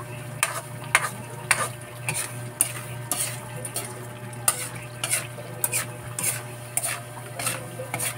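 Metal spoon scraping and clinking against a metal pan at an irregular pace, roughly one or two knocks a second, while stirring frying alamang (tiny salted shrimp). A faint sizzle and a steady low hum run underneath.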